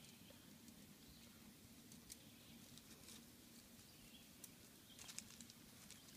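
Near silence: faint outdoor ambience with a few scattered soft clicks and rustles, a small cluster of them about five seconds in.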